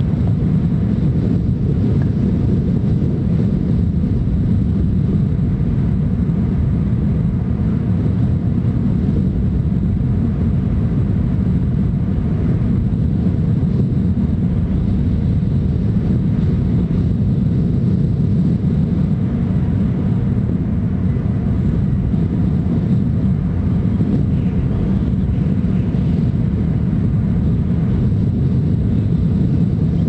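Steady low rumbling outdoor noise, even and unbroken, with no distinct calls or other events standing out.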